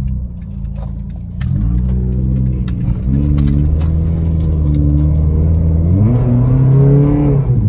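A Toyota's 126-horsepower four-cylinder engine, heard from inside the cabin, accelerating from a stop. The engine note steps up in pitch twice, climbs again, then drops near the end as the transmission shifts up.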